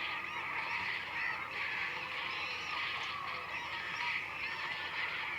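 A dense chorus of many animals calling at once: overlapping honking calls with no break.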